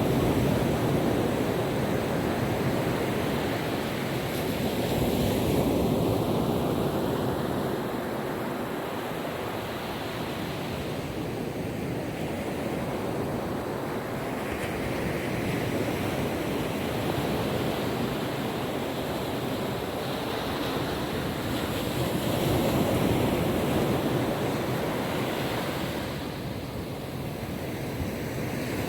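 Gentle ocean waves washing onto a beach, a steady rush of surf that swells and eases every few seconds, with some wind on the microphone.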